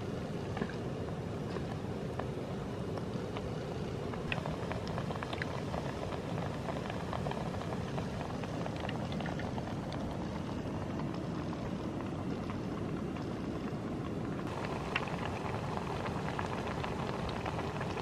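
Batter-coated bread pakoras deep-frying in a small aluminium pot of hot oil: a steady sizzle with scattered small crackles.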